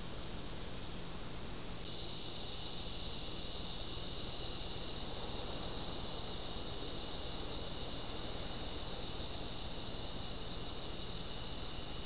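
Steady high-pitched chorus of night insects. A click about two seconds in, after which the chorus is louder.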